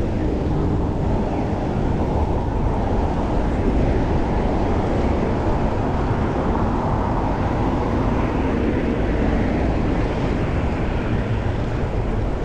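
Wind buffeting a chest-mounted action camera on a moving bicycle, a steady rushing noise heaviest in the low end, with street traffic sound mixed in.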